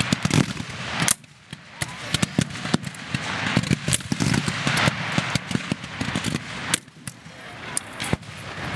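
Scattered black-powder rifle-musket fire from reenactors shooting blank charges: many sharp shots at uneven intervals, some overlapping, with brief lulls about a second in and near the end.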